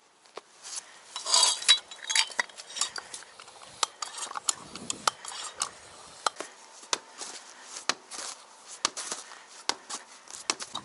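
Irregular metallic clicks and taps, with a short scraping rasp about a second in, as a bicycle wheel rim, tyre and tools are handled while a tyre is being fitted.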